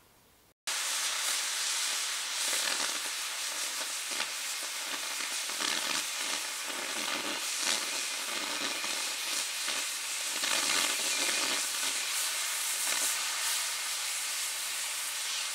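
Oxy-propane cutting torch on a Mathey Dearman pipe beveler, hissing steadily as it cuts through the steel wall of a 30-inch pipe. The sound starts abruptly about half a second in.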